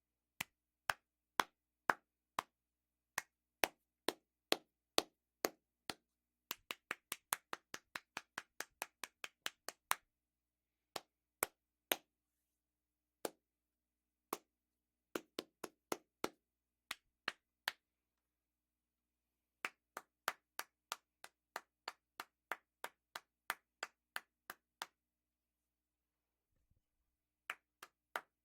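Hand claps, each one separate and sharp: steady at about two a second at first, then a quicker run of about four a second, then uneven groups broken by short pauses, with a silence of a couple of seconds near the end before the clapping resumes.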